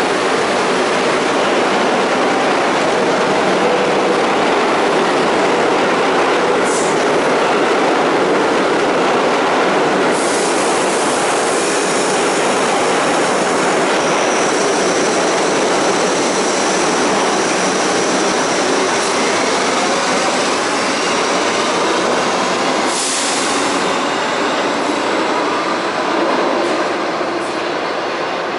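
R62A New York City Subway train pulling out of the station and rolling away into the tunnel, with a steady loud rumble of wheels on rail. A high-pitched squeal joins in about ten seconds in and fades again, and the train noise eases slightly near the end as it recedes.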